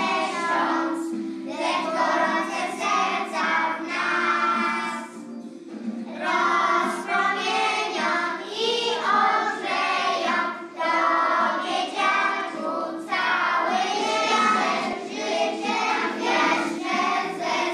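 A group of young children singing a song together, with a short break about five and a half seconds in.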